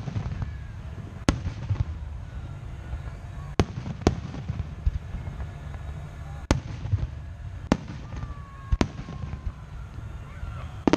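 Fireworks display: aerial shells bursting in sharp bangs, about seven spread through the stretch, over a low background rumble.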